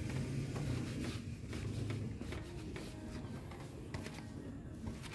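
Faint scattered clicks and light rubbing over a low steady hum, like parts being handled.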